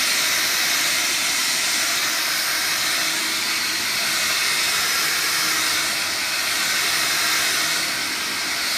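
Vax Air Cordless stick vacuum running steadily, a high airy rush of motor and suction with a faint low hum under it.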